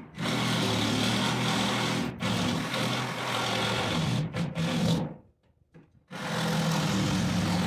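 Reciprocating saw cutting into the wooden sink-base cabinet, trimming the opening around a plumbing pipe for clearance. It runs steadily for about five seconds with two brief dips, stops for about a second, then starts cutting again.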